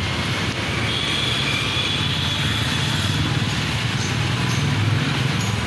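Street traffic: small car engines running at low speed as cars move slowly past close by, over a steady traffic hum.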